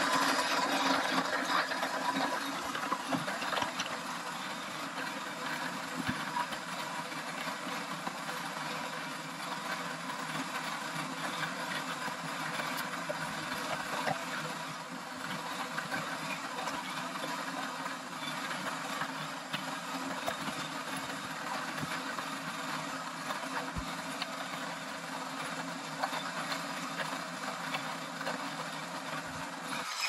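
Xiaomi electric coffee grinder's motor running steadily while it grinds coffee beans. The sound is a continuous mechanical whirr, loudest in the first few seconds.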